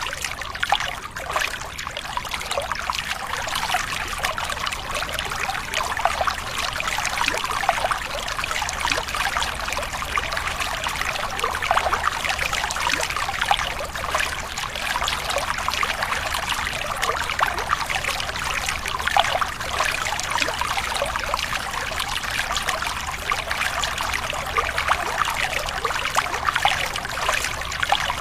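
Running water trickling and splashing steadily, a dense unbroken babble of small splashes, with a faint low rumble underneath.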